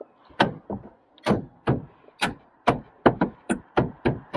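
A quick series of about a dozen sharp knocks or taps, two to three a second, the last few coming faster.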